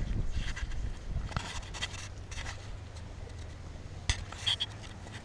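Camera handling noise: scraping and rubbing with scattered light clicks as the camera is moved about by hand, with a sharp knock about four seconds in followed by a short high double chirp.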